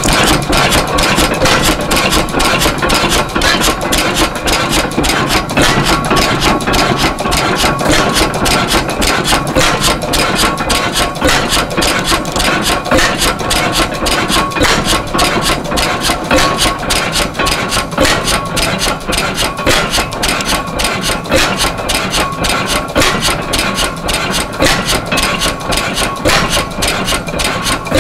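Circa-1920 Spence-Smith-Kootz oil-field pumping engine running steadily, a rapid even run of mechanical knocks and exhaust beats. It is running well on spark-plug ignition fed by a battery and coil.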